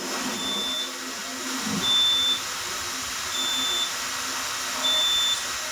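Fire alarm system's electronic beeper sounding a high, steady tone in half-second beeps about every second and a half, four beeps in all, over a steady hiss.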